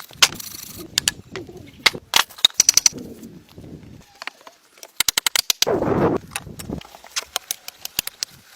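A series of sharp knocks and taps at irregular intervals, with a quick run of about eight taps a second roughly five seconds in.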